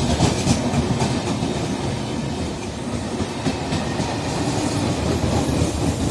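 Goods train passing, the wheels of its wagons clattering steadily over the rail joints.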